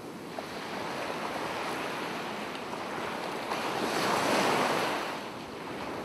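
Ocean waves washing onto a beach, a steady rush of surf that swells to its loudest about four seconds in and then falls away.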